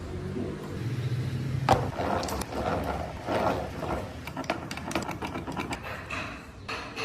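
Woodworking tool sounds: a small motor hums briefly about a second in, then a sharp knock is followed by irregular knocks and scraping on wood.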